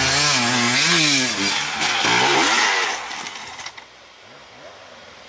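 Enduro dirt bike engine revving hard, its pitch rising and falling in quick blips. The engine sound drops away sharply about three seconds in.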